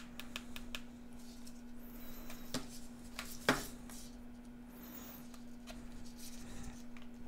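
Small clicks and rubbing as a thermocouple probe's plug is handled and pushed into a Kaiweets KM601 multimeter's input jacks, the sharpest click about three and a half seconds in, over a steady low hum.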